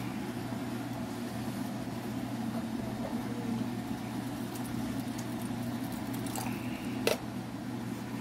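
Pot of tomato-and-chicken broth simmering, bubbling steadily over a low constant hum, with one sharp clink about seven seconds in.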